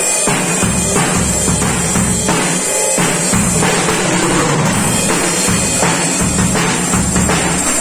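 Acoustic drum kit played with sticks, snare and toms struck in a steady run with Zildjian cymbals, over a backing song with a sustained bass line.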